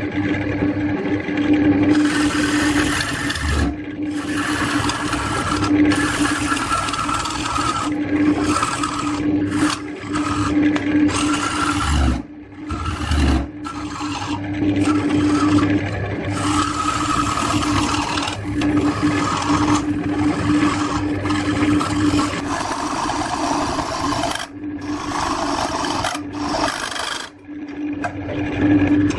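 Wood lathe running with a steady motor hum while a turning tool cuts the face of a spinning disc of glued-together firewood pieces, a continuous rasping scrape of steel on wood. The scrape starts about two seconds in and breaks off briefly several times as the tool is lifted.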